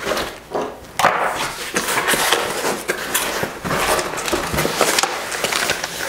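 Long cardboard shipping box being opened by hand: flaps tearing, cardboard scraping and rustling, and a sheet of paper slid out near the end.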